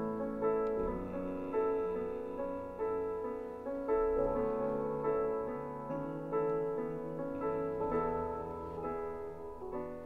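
Slow solo piano music, single notes struck about once a second and left to ring.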